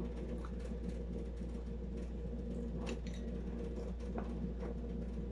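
Steady low hum with a few faint clicks of people eating with their hands: small mouth and chewing noises.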